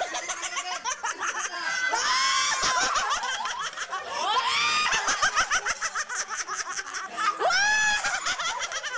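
Several people laughing and shrieking in high voices, with loud rising shrieks about two seconds in, about four and a half seconds in, and near the end.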